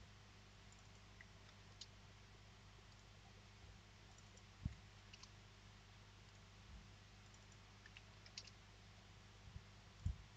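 Near silence over a low steady hum, broken by a few faint computer mouse clicks and two dull low thumps, one about halfway and one near the end.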